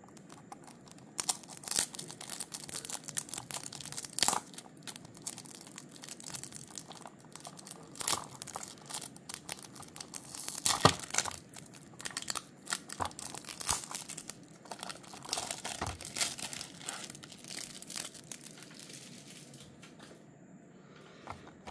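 Clear plastic film wrapper being picked at, torn and peeled off a small cardboard toy box: irregular crinkling and crackling with occasional sharper snaps.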